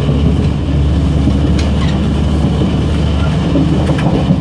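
Gangway between the cars of a moving DR3100 diesel multiple unit: a steady low diesel drone with rattling wheel and rail noise, and a couple of sharp clicks about a second and a half in and near the end.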